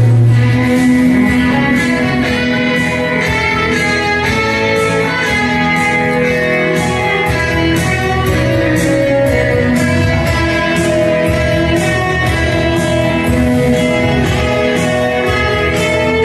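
Music with guitar to the fore and sustained melody notes over a steady beat.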